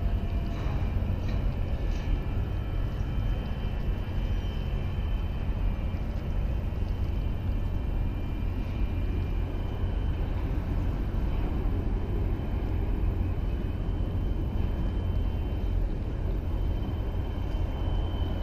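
Steady low rumble and hiss of harbour ambience, with faint thin high whining tones over it.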